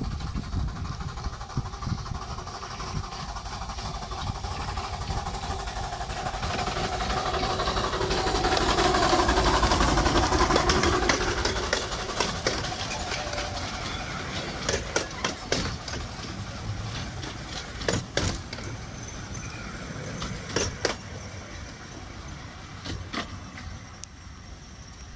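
1970 Severn Lamb miniature steam locomotive No. 3 Dougal approaching and running close past, hauling its passenger carriages. It is loudest about ten seconds in as the engine goes by. As the carriages follow and move away, the wheels make a run of sharp clicks on the track.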